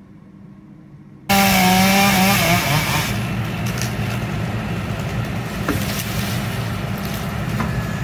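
Chainsaw cutting through ash wood. It comes in abruptly and loud about a second in, with its engine note at high revs sagging as the chain bites, then a steady sawing noise as the cut goes on.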